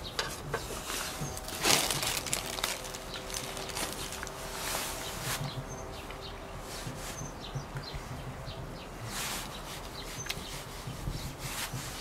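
A person eating steak: scattered rustles, clicks and chewing noises, the loudest rustle about two seconds in. Faint bird chirps and a faint steady hum in the first half sit behind it.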